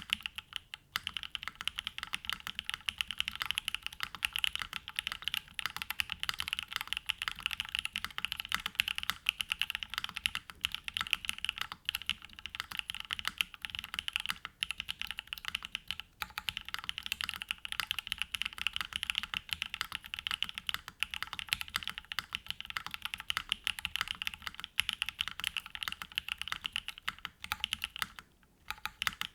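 Continuous typing on a Mode Envoy mechanical keyboard, with hand-lubed TTC Wild linear switches on a polycarbonate plate with mid foam under GMK Serika R2 keycaps: a dense, steady stream of keystrokes. The typing pauses briefly near the end, then resumes.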